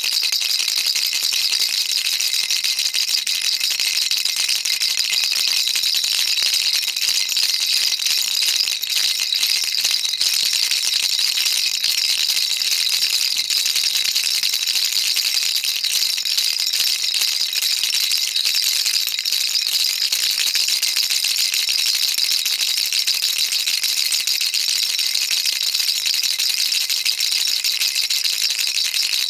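Baby rattle shaken without pause: a steady, dense, high rattling with no breaks.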